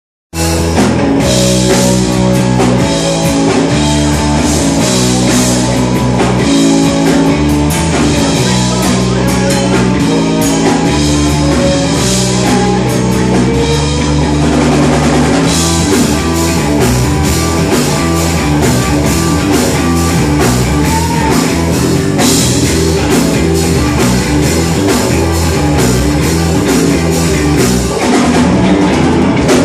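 Live rock band playing loud: electric guitars over a full Pearl drum kit.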